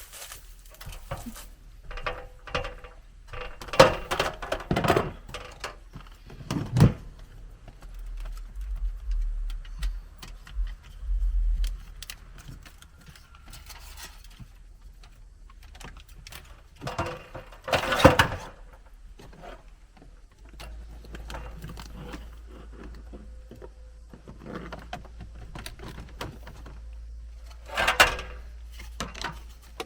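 Foil tape and a dryer vent duct being handled and taped: scattered crinkles, taps and metallic clicks, with louder rustling bursts about four seconds in, near the middle and near the end.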